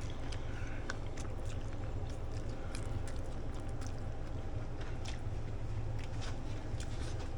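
A person chewing a mouthful of hearts of palm angel hair pasta with meat sauce and cheese, with small scattered clicks from a utensil against the plate, over a steady low hum.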